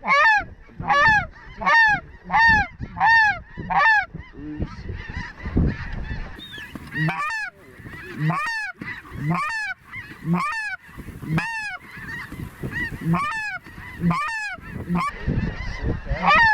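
Snow goose calls: a steady run of repeated high, yelping honks, about one every 0.7 s for the first few seconds, then roughly one a second after a short gap.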